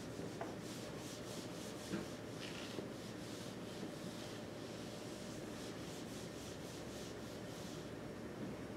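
Faint, irregular rubbing and scuffing over a steady low room hum, with a soft knock about two seconds in.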